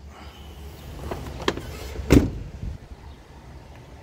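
Truck hood release being worked: a couple of light clicks, then one heavy clunk about two seconds in as the hood latch lets go.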